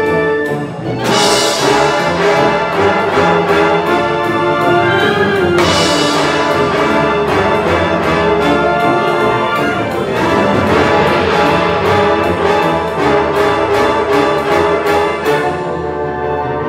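High school concert band playing a piece live, full wind band with brass to the fore and steady rhythmic attacks. Bright splashes of high sound come about a second in and again near six seconds.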